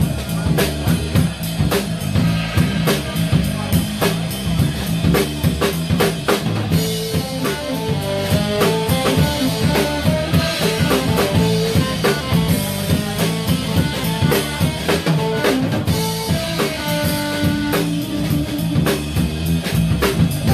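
Live jazz quartet playing an instrumental: a drum kit keeps a steady beat with snare and bass drum under electric bass and guitar, while a tenor-range saxophone plays the melody.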